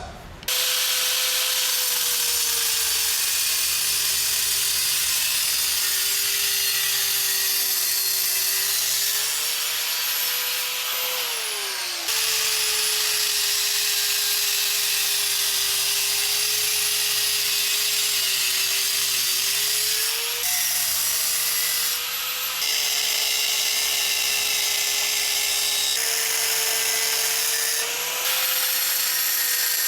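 A high-speed power grinder cutting out steel plate: a steady whine over a harsh hiss, the pitch sagging for several seconds at a time as the wheel bites into the metal and climbing back when the load eases.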